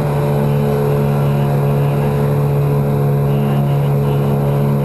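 Yamaha 9.9 hp two-stroke kicker outboard running steadily at full throttle, pushing the boat along, with an even, unchanging hum.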